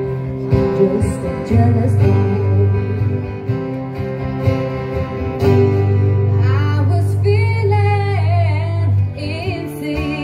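Live acoustic music: two acoustic guitars playing chords, with a woman singing from about six seconds in.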